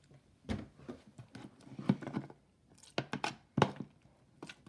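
Sticky slime being stirred and worked with added glue in a bowl, heard as a handful of irregular short sticky handling sounds.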